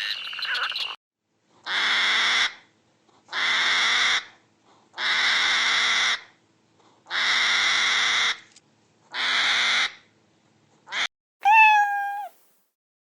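An animal giving five harsh, hissing calls at an even pace, each just under a second long, followed near the end by a short pitched cry that falls and then holds.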